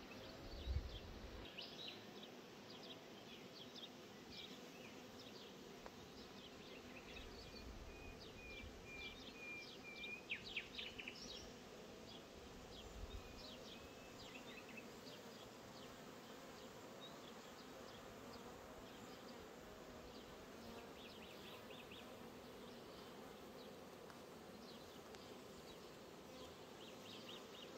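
Honeybees buzzing around a row of hives: a faint, steady hum. High chirps come and go over it, with a few low bumps near the start and about ten seconds in.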